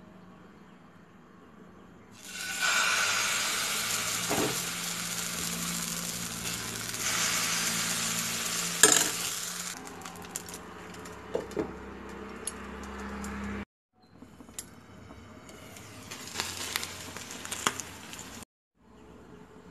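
Coconut pancake batter sizzling in a hot non-stick pan, a steady hiss that starts about two seconds in and eases off after about ten seconds, with a few sharp clinks of cookware, the loudest about nine seconds in.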